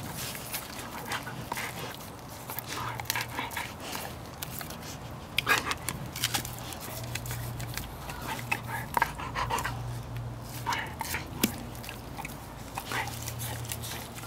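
A Siberian husky licking at an Orapup tongue-cleaning brush, with irregular smacks and clicks of tongue and teeth on the plastic bristles.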